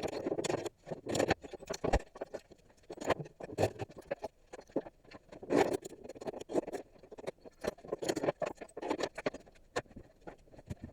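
Nails being beaten out of pallet boards: a run of irregular light knocks and taps on wood and metal, with some scraping in between.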